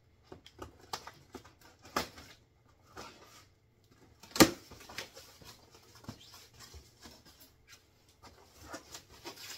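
A large cardboard shipping box being opened by hand: scattered taps, scrapes and rustles of the cardboard flaps and cut tape, with one sharp knock about four and a half seconds in.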